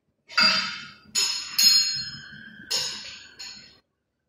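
Steel chain of a chain hoist clinking against metal, about five sharp clinks, each ringing briefly.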